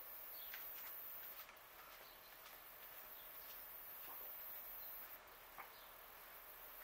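Faint outdoor ambience: a few short, faint bird chirps scattered over a steady high hiss.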